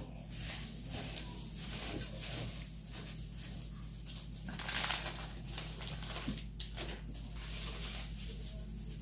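Flattened green rice flakes (cốm dẹp) being tossed and squeezed by hand in a bowl with fried shallots: soft, irregular rustling and crinkling.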